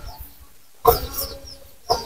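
Two short animal calls about a second apart, the first with a brief pitched tail.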